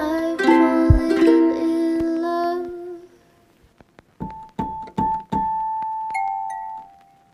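Background music: a light instrumental tune of struck notes that breaks off for about a second midway, then comes back as single notes and held tones.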